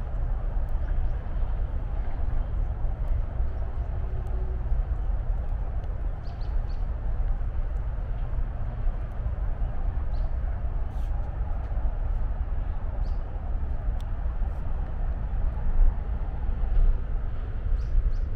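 Steady rumble of distant highway traffic, with faint short bird chirps now and then.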